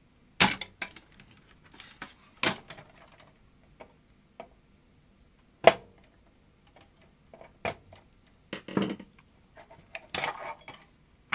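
Scattered clicks, knocks and clatters of a video recorder's plastic chassis, metal deck and circuit board being handled as the board's standoffs are squeezed and the tape deck is unclipped and lifted off. The loudest knocks come about half a second in and near the middle.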